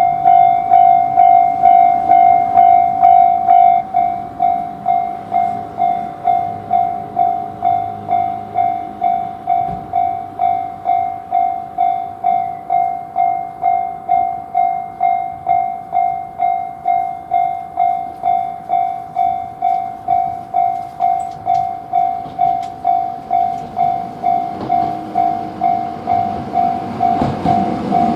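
Japanese railroad level-crossing warning bell ringing "kan-kan", an electronic tone repeating evenly about twice a second. Near the end, a train's rumble rises under it as the train approaches.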